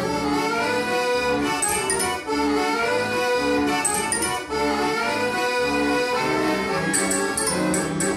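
A self-playing accordion in a cabinet plays a tune: a melody over a regular bass-and-chord beat, with short high tinkling accents every couple of seconds.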